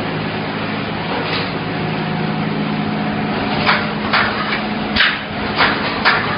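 Double-pull wire mesh welding machine running: a steady mechanical rumble with a low hum. About halfway in, a regular run of sharp clacks starts, about two a second.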